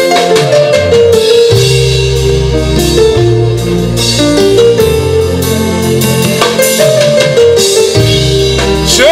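Instrumental worship music: held chords over a moving bass line, with a steady drum beat and no singing.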